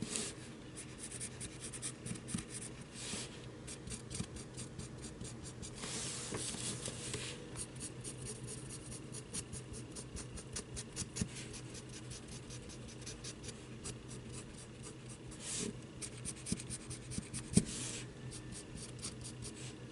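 Black felt-tip marker scratching over the edges of a printed cardboard cutout in many quick short strokes, with a few longer strokes along the way.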